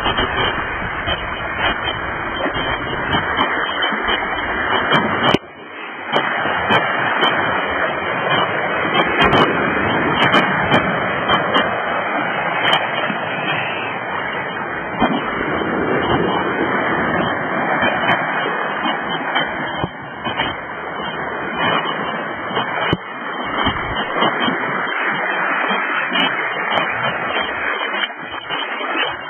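Sea surf washing over rocks and into a rock pool: a steady rushing of water, with a brief dip about five seconds in.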